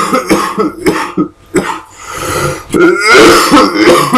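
A man coughing over and over in a fit, loudest about three seconds in. It is a chronic cough that has lingered on after a cold.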